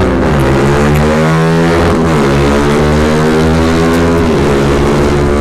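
A single-cylinder 150 cc sport motorcycle engine is at full throttle in a drag run. It revs up through the gears, with upshifts about two seconds in and again about four seconds in, over wind rush.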